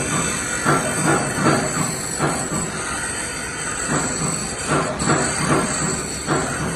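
Resistance wire butt welding machine working in a workshop: a steady high hiss under irregular short clanking bursts, about one or two a second.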